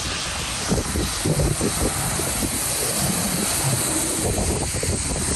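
Strong blizzard wind rushing and buffeting the microphone: a steady loud roar with gusty low rumbles.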